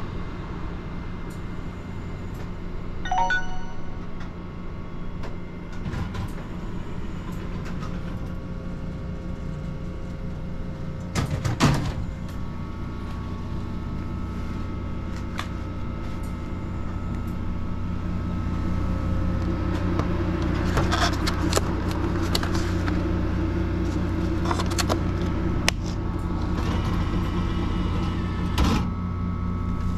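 Vending machine working through a purchase: a steady machine hum, a short electronic beep about three seconds in, and a sharp knock near the middle. A motor then runs louder for several seconds with a few clacks, and there is one more knock near the end.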